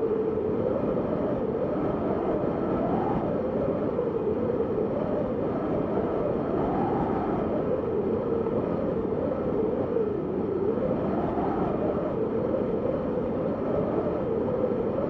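Howling winter storm wind: a steady rush with a whistling tone that slowly rises and falls every few seconds.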